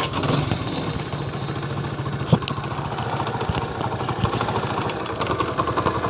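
Honda CD 70's single-cylinder four-stroke engine running steadily at idle just after starting, with one sharp click about two seconds in. The tappets have just been set, and the owner finds the tick-tick from the valve gear gone.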